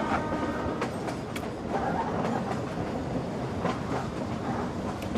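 Train running, heard from inside a passenger carriage: steady running noise of wheels on the rails, with a few sharp clacks scattered through it.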